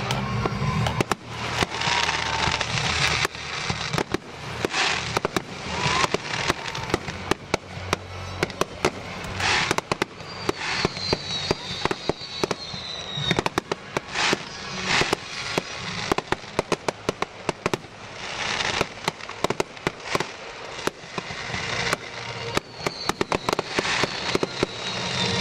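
Fireworks show going off continuously: a rapid run of firework bangs and crackles. Music plays underneath.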